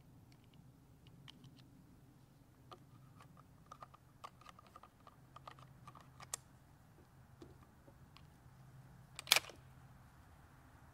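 Small metallic clicks of a scoped rifle and its ammunition being handled and readied, in a quick run of light clicks, then one sharp, louder clack about nine seconds in.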